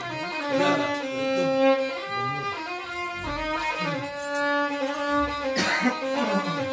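Violin playing a solo melody, held notes joined by slides and ornaments, with no singing.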